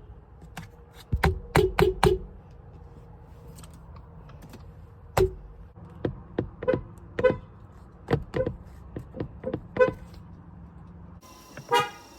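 Car horn tapped in short toots: a quick run of four about a second and a half in, a single one near five seconds, then a string of short, spaced-out toots up to about ten seconds. After a change in the background near the end comes one more toot.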